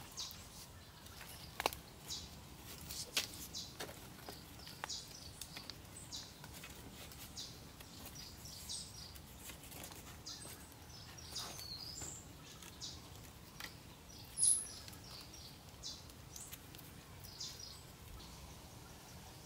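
Light, irregular clicks and knocks of wooden poles being handled and lashed together with vine, over birds chirping in the forest. One sharper, high chirp stands out about three-quarters of the way in.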